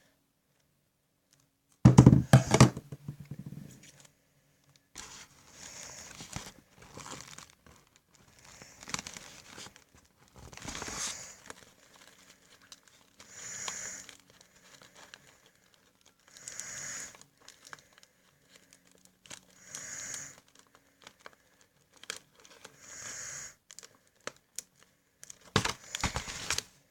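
Paper and sellotape being handled in crafting: a loud crinkling, tearing burst about two seconds in, then short crinkles repeating about every three seconds.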